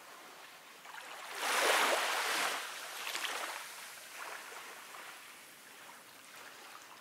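Sea waves washing on a rocky shore: a rush of surf swells up about a second and a half in and ebbs away over a second or so, followed by a couple of smaller washes and a quieter hiss of the sea.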